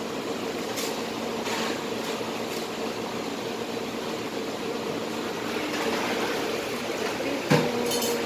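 Steady hum and hiss of a fried-food stall's kitchen machinery and ventilation, with a few light clicks and a sharp knock near the end.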